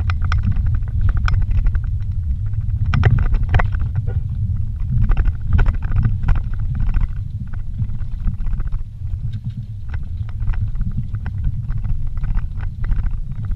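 Vehicle driving fast over a rough dirt track, heard from inside the cab: a heavy low rumble of tyres and suspension, with frequent knocks and rattles as it jolts over ruts and rocks.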